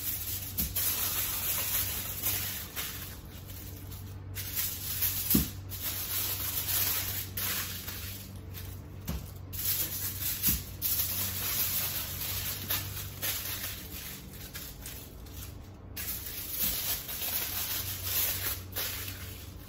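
Aluminium foil crinkling and crackling as sheets are handled and scrunched around potatoes to wrap them, on and off.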